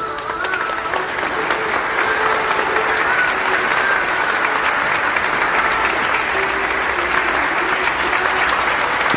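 Applause: a dense, steady clapping with faint music underneath.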